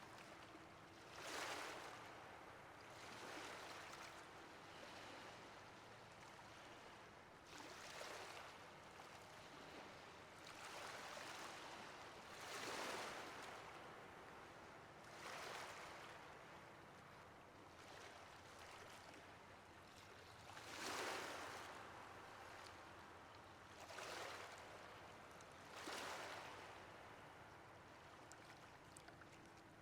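Faint ocean waves washing in, a soft hiss of surf that swells and falls every few seconds.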